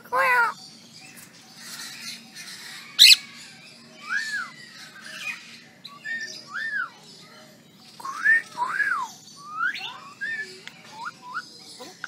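A myna calling: a loud harsh squawk at the start and a sharp shrill note about three seconds in, then a string of short whistled notes, each rising and falling, about one a second.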